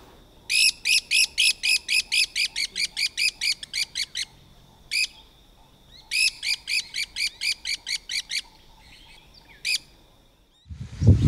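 A pair of black-collared barbets duetting: two runs of fast, ringing repeated notes, about five a second, the first about four seconds long and the second about two and a half, with a single note between them and another near the end.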